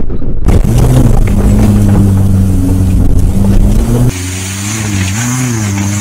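Subaru Forester's flat-four engine running under load on a dirt trail, a steady drone with slight shifts in pitch. About four seconds in the sound changes abruptly, a hiss joining the engine note, which dips and rises briefly near the end.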